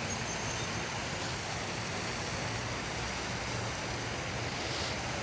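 Steady rushing outdoor background noise, with no single sound standing out.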